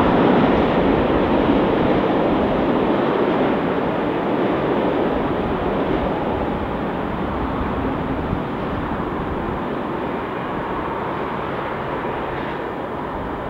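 A track maintenance train's wagons rolling away on the rails: a steady running noise that fades gradually as the train goes into the distance.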